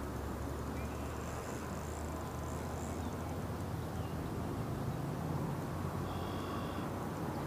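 Steady low outdoor background rumble with no distinct event, and a brief faint high-pitched call about six seconds in.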